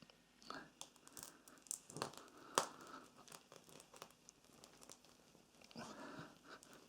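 Faint scattered clicks, creaks and rubbing as a greased rubber tyre-plug strip is forced into a tyre's puncture with the plug kit's insertion tool, with one sharp click about two and a half seconds in.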